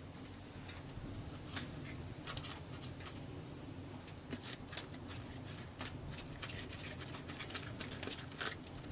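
Faint, irregular small clicks and scrapes of wooden utensils pushing vegetable stuffing into a whole pike in an enamel roasting pan.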